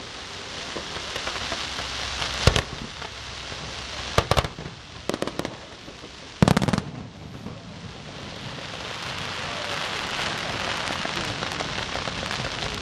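Fireworks display: sharp bangs of bursting shells, a single one about two and a half seconds in, small clusters around four and five seconds, and the loudest just past the middle, over a steady crackle that grows louder in the second half.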